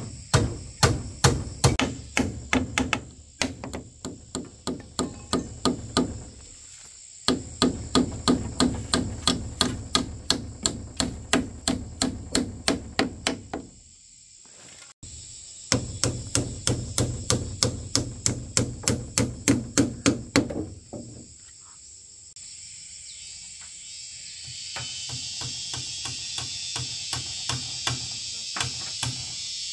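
Hammer driving nails, about three blows a second, in three runs of several seconds with short pauses between. Near the end the hammering stops and a steady high hiss takes over.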